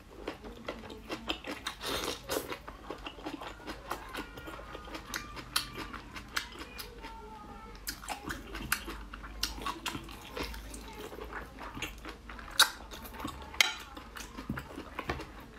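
Close-miked eating of braised pork large intestine: wet chewing and lip smacks, with frequent short clicks and two louder clicks about a second apart late on.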